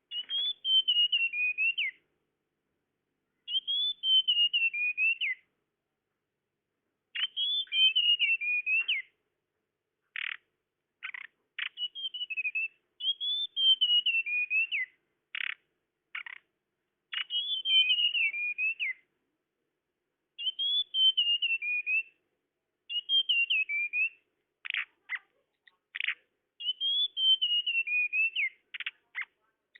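Tledekan bird lure call: a clear whistled phrase, falling and wavering, repeated about every three seconds, with short sharp single notes between the phrases in the second half.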